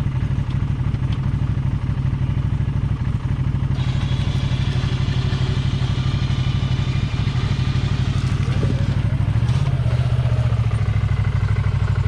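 Can-Am Maverick Sport XRC's engine running steadily at low revs while a Rough Country RS4500 electric winch pulls the vehicle out under load. A higher whine joins the engine about four seconds in, and the engine note shifts slightly near ten seconds.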